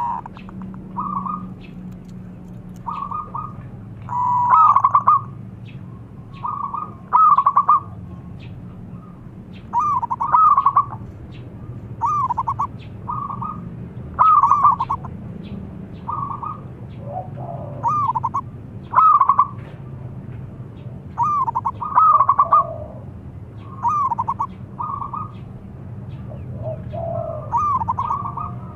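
Zebra dove (perkutut) cooing: short bouts of rapid, rolling coo notes repeated every second or two.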